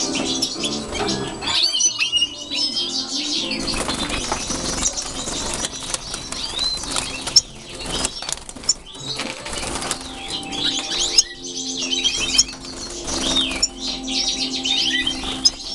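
European goldfinches twittering and chirping in quick high notes, with bursts of wing-flapping as birds flutter about the cage.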